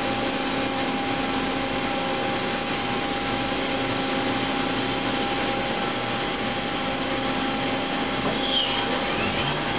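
Spindle of a Mazak H400N horizontal machining center running steadily at about 4,500 rpm with a cold spindle, a steady whine over the machine's hum.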